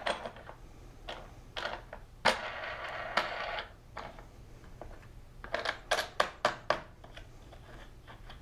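Clicks and knocks of an Incra hold-down clamp's parts being handled and fitted into the metal track of a table saw sled, with a scraping slide starting about two seconds in and lasting just over a second, and a quick run of clicks near six seconds. A faint steady hum lies underneath.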